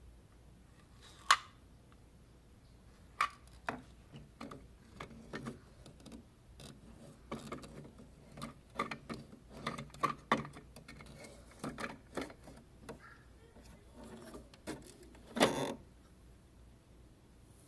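A string of irregular mechanical clicks and clunks, with a sharp click about a second in and a louder clunk near the end.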